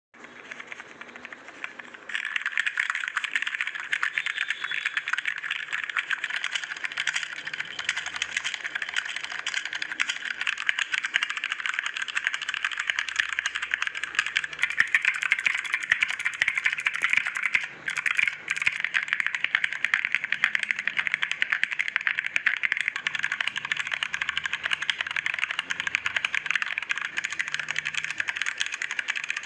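Rapid typing on computer keyboards, a dense stream of key clicks. It is quieter for the first two seconds, then louder, with a brief break a little past halfway.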